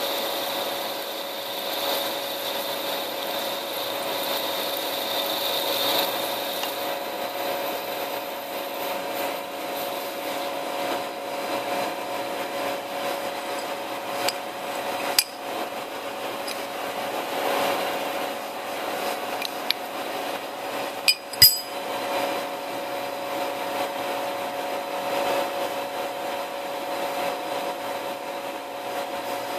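Small CNC lathe turning a metal blank held in a collet: the spindle drive runs steadily with a humming whine while the tool cuts, curling off chips. A few sharp clicks come about halfway through and again about two-thirds of the way in.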